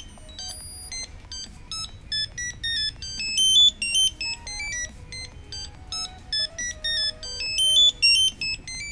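Blade Vortex 150 FPV racing quadcopter playing its electronic beep tune, a quick melody of stepped, buzzy notes. It signals that the transmitter setup wizard has completed.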